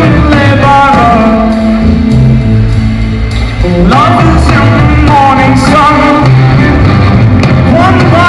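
Live rock band playing loudly: electric guitars and a drum kit with a melody line bending over a dense low end.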